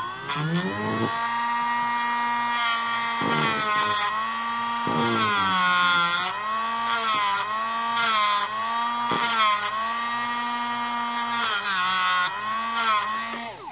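Dremel rotary tool with a sanding drum running at speed, grinding down a hard plastic action-figure shoulder peg to thin it. Its steady whine dips in pitch each time the drum is pressed into the plastic, then winds down at the very end.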